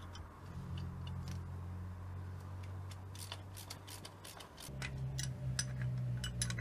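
Hand wire brush scraping a coil spring seat clean, in short, irregular strokes that come thicker after about three seconds.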